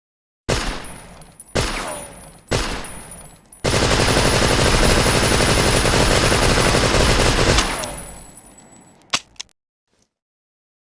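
Thompson submachine gun (Tommy gun) firing: three single shots about a second apart, each with an echoing tail, then a sustained burst of automatic fire about four seconds long that dies away in an echo. Two sharp clicks follow near the end.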